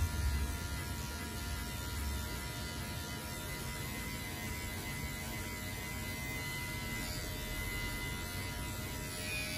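Cordless hair clipper with a guard comb attached, running with a steady electric hum as it is worked up through the hair to blend a fade.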